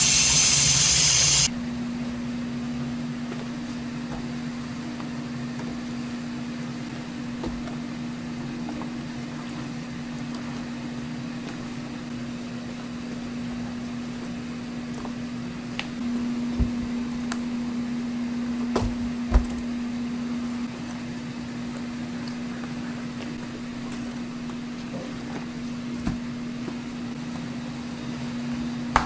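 Rushing water that cuts off abruptly about a second and a half in, then a steady mechanical hum like a fan or ventilation unit, with a few light knocks.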